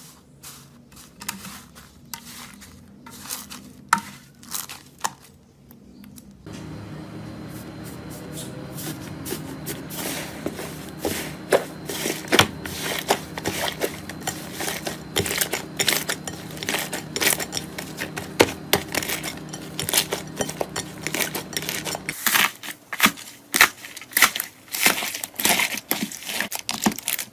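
Slime being squeezed, poked and stretched by hand: a dense run of small sticky clicks, pops and crackles. The background changes abruptly twice, with a low hum under the middle part.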